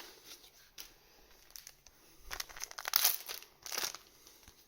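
Foil booster pack wrappers crinkling as they are handled, in two short bursts about three seconds in and again just after.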